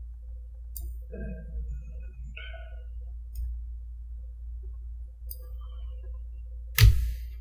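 Low steady hum with a few faint clicks from a computer trackball and keyboard being worked, and one sharp, loud knock near the end.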